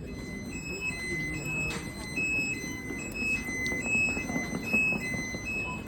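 Music: a quick tune of clear high notes hopping back and forth between two pitches, over a low steady rumble.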